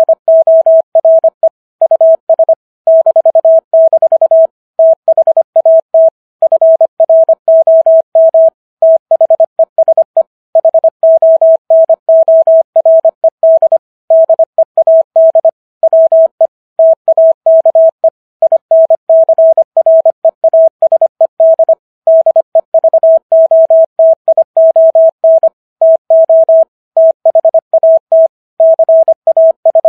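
Morse code as a single pure beep, keyed on and off in rapid dots and dashes at 25 words per minute, with slightly longer gaps between words. It is sending the text of the Gettysburg Address for copying practice.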